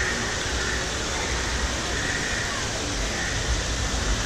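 Steady rushing outdoor background noise with a low rumble underneath; no single sound stands out.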